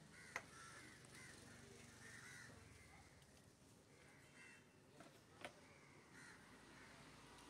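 Crows cawing faintly and repeatedly, with two sharp knocks, one just after the start and another about five seconds in.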